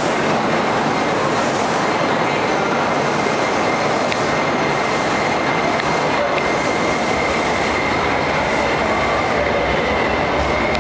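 Beijing Subway Line 1 train moving alongside the platform: a steady loud rumble with a high, even whine running through it and a couple of faint clicks.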